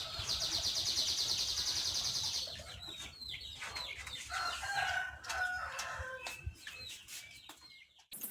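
Chickens clucking and calling in a series of short pitched calls. For about the first two seconds there is a fast, even, high-pitched rasping.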